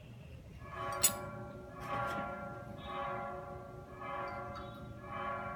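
Background music of sustained, bell-like tones that swell about once a second, with a sharp click about a second in.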